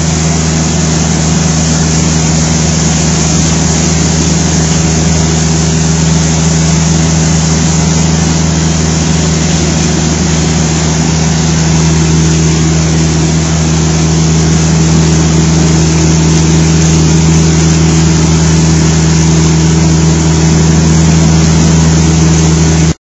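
Rotary carpet cleaning machine running on carpet, its motor giving a loud, steady hum with a low pitch. It cuts off abruptly near the end.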